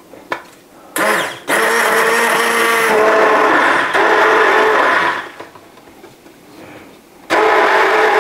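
Hand-held immersion blender running in a glass jar of liquid shake mix, switched on and off in runs: a short pulse about a second in, a run of nearly four seconds, a pause of about two seconds, then running again near the end.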